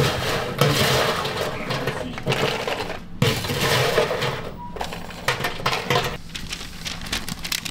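Clatter of work at a snack-bar counter: irregular clinks and knocks of dishes and utensils, with a short beep about halfway through.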